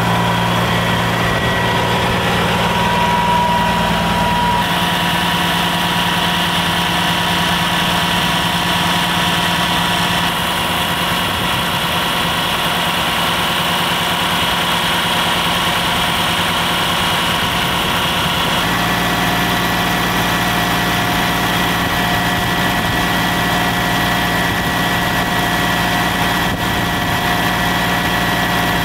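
Caterpillar C-9 inline-six diesel idling steadily. Its tone changes abruptly about three times.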